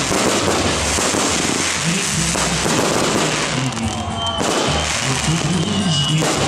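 Fireworks display going off in a dense, continuous run of bursts and bangs.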